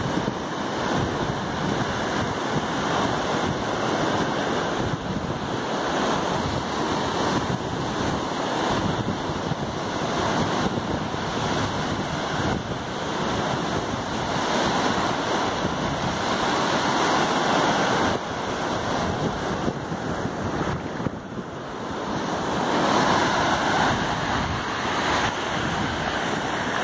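Surf breaking and washing up a sandy beach, a steady wash that swells louder as each wave comes in, with wind buffeting the microphone.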